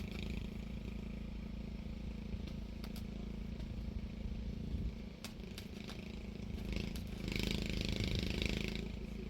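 An engine running steadily with a low hum, with a few light clicks and a stretch of hissing crackle at about seven seconds in.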